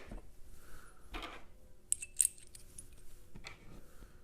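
Small metal hardware clinking as screws and T-nuts are handled on steel L brackets: a few sharp metallic clinks about two seconds in, with softer handling noises before and after.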